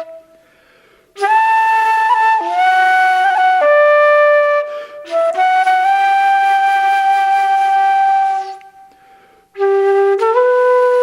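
Solo flute playing a slow melody in Irish traditional style, with long held notes, slight slides between them, and two short pauses for breath.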